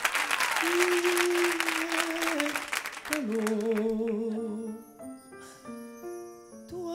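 Audience applause dying away under orchestral music. About three seconds in, a male singer holds a long wordless note with vibrato over piano and orchestra, and short stepping instrument notes follow near the end.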